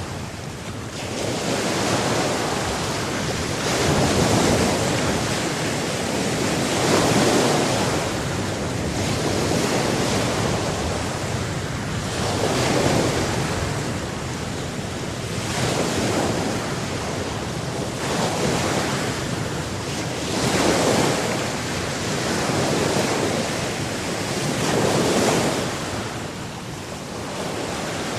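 Ocean surf: waves breaking and washing in, rising and falling in loudness every two to four seconds over a continuous rush of water.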